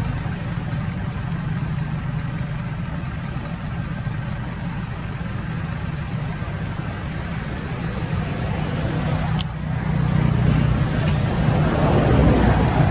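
Steady low engine hum, like a motor idling, with one sharp click about nine and a half seconds in; the hum grows louder and rougher near the end.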